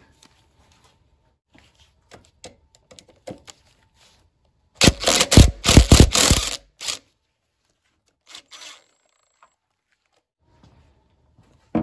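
Hand work on a stuck engine-bay wiring connector: faint clicks and taps, then about five seconds in a loud burst of scraping and rattling lasting about two seconds, and a few more faint clicks after it.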